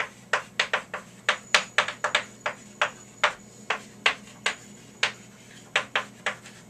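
Chalk writing on a chalkboard: an irregular run of sharp taps and clicks, several a second, as the chalk strikes the board with each stroke, with a brief lull about five seconds in.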